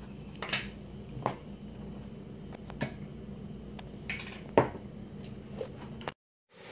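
Scattered light clicks and clinks of a plate being handled, over a steady low hum; the sound cuts out abruptly near the end.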